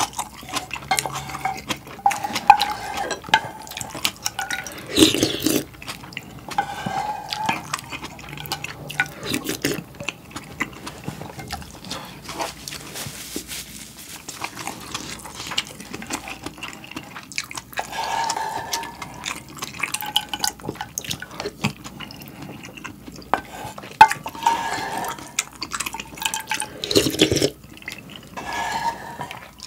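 Ramen eating sounds: repeated slurps of noodles and broth from a spoon, with the spoon clinking and scraping in a saucepan between them.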